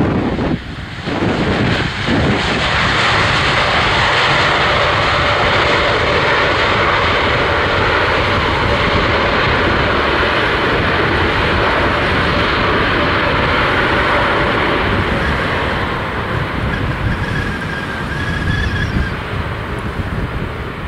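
Jet engine noise from a landing Boeing 777-300ER with GE90 engines. It is loud and steady for about fifteen seconds, then slowly fades.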